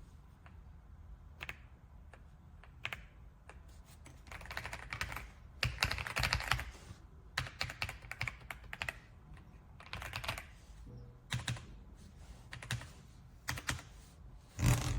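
AULA F75 Pro mechanical keyboard with pre-lubed Reaper switches being typed on: a few single keystrokes at first, then quick runs of keystrokes in bursts, with one heavier key strike near the end.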